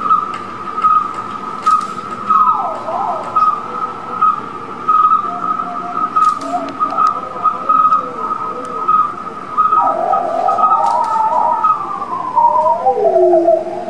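Live electronic improvisation from a laptop: a steady high tone pulsing in a regular beat, with whistle-like tones sliding up and down over it, growing busier and falling in pitch near the end.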